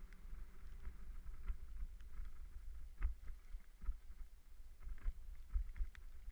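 Bicycle rattling and knocking over a rough, rocky trail on a descent, with steady wind rumble on the microphone.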